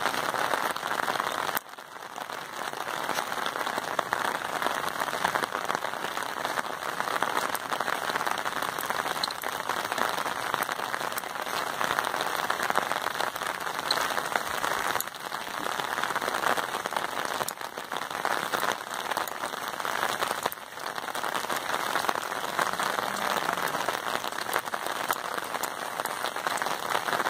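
Steady rain falling, an even hiss that dips briefly a few times.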